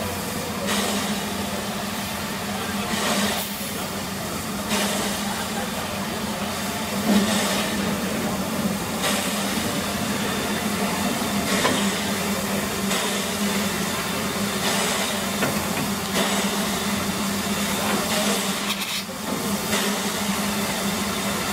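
A 1935 Orenstein & Koppel two-foot-gauge steam locomotive moving slowly, with a slow, uneven exhaust chuff every couple of seconds and a hiss of steam between them. A steady low hum sits underneath.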